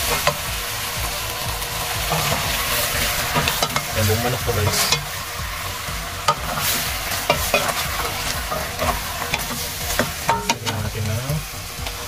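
Chicken pieces sizzling in a stainless steel pot as they are sautéed with ginger and stirred with a wooden spatula. The spatula scrapes and knocks against the pot now and again over the steady hiss.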